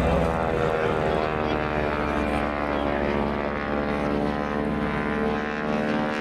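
Boeing Stearman biplane's 450 hp radial engine and propeller droning steadily in flight, the pitch drifting slightly.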